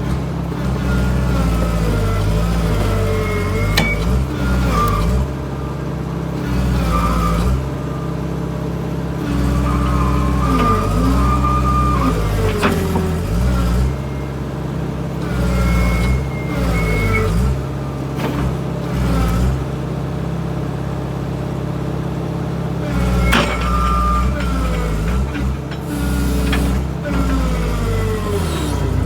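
Excavator diesel engine running under changing load, its note rising and falling as the hydraulics work, while the machine tries to get its thrown track back on the rollers. A few sharp knocks come through, about 4, 13 and 23 seconds in.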